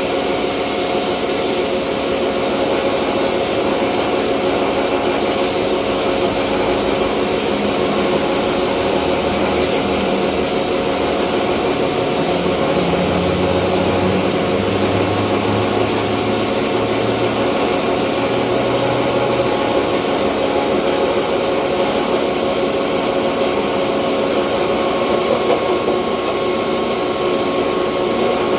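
Rice milling machine running steadily, a constant mechanical hum and rush of grain with several steady tones in it.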